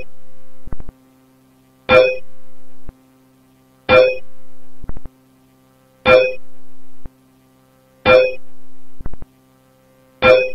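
Eerie looped electronic music: a single keyboard note struck about every two seconds. Each note is followed by a held drone that cuts off abruptly after about a second, with faint clicks in the gaps.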